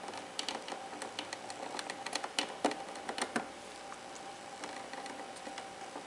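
Indian ringneck parakeet's beak pecking and nibbling at the plastic spout of a coffee machine: a quick, irregular run of small clicks and taps through the first half, thinning to a few scattered clicks after.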